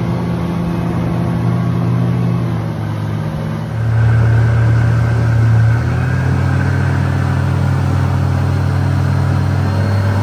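Outboard motor of a speedboat running steadily at cruising speed, with water rushing along the hull and wind, a steady low hum that gets a little louder about four seconds in.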